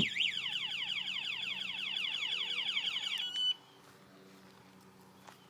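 Bass boat security alarm siren sounding, set off by opening a rod locker: a rapid series of falling electronic sweeps, about eight a second. It cuts off suddenly about three and a half seconds in, with a short beep as it stops.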